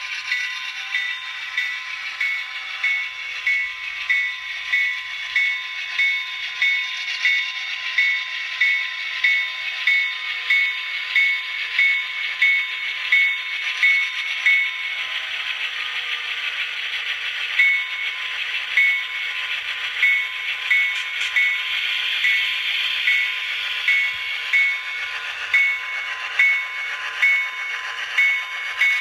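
Athearn Genesis HO scale GP9 model locomotive's sound decoder playing a diesel engine running, through a small onboard speaker with no deep rumble. Over it a bell-like ding repeats a little under twice a second and pauses for a couple of seconds about halfway.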